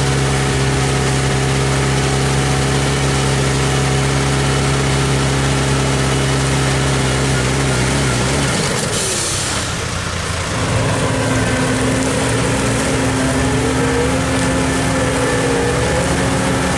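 Diesel engine of a New Holland tractor pulling a grain trailer, running steadily under load. About halfway through it gives way, after a brief hiss, to the steady running of a New Holland CX5080 combine harvester working maize.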